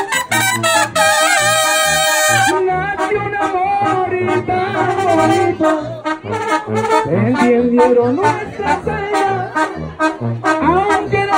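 Live Mexican brass band (banda) playing: trumpets carry the melody over a sousaphone bass line that pulses about twice a second, with a couple of rising slides about two-thirds of the way through.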